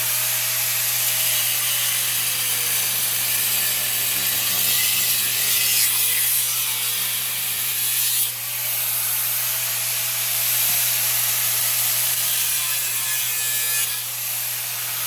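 Electric power tool cutting into an old furnace blower motor to free its copper: a steady harsh cutting noise with a faint whine from the tool's motor, which eases off briefly about eight seconds in and then picks up again.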